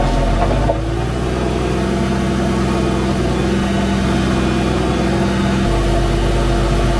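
Tractor engine running steadily while pulling a slurry spreader, its slurry spraying out through the rear splash plate. The engine note shifts about five and a half seconds in.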